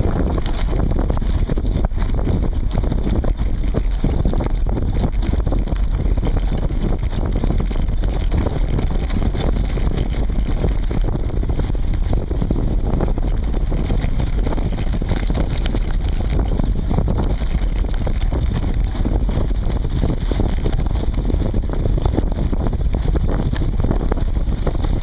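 Mountain bike rolling fast over a dirt woodland trail, heard through a camera clamped to the seatpost: a continuous rumble of knobbly tyres on dirt with constant small rattles and knocks as bumps jolt through the frame.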